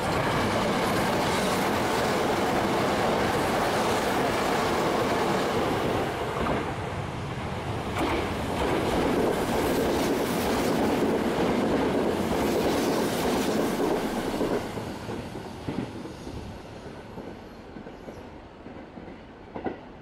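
Electric train on the Sanyo Electric Railway main line running past the platform close by. The rail noise stays loud for about fourteen seconds, then fades away, with a couple of sharp clicks near the end.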